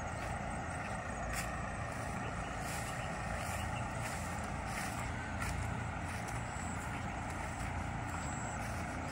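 Steady outdoor background noise: a low, uneven rumble under a constant hiss, with a few faint soft clicks.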